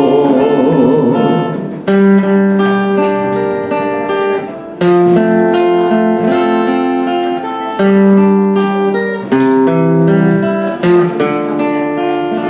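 Instrumental interlude of an enka song played on guitar: plucked notes and strums, each phrase starting sharply and fading, with no singing.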